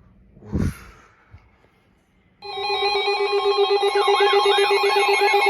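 Electronic alert tone opening the next severe thunderstorm warning: steady tones with a warbling, siren-like tone rising and falling about twice a second, starting abruptly about two and a half seconds in. Before it, a short low falling whoosh about half a second in.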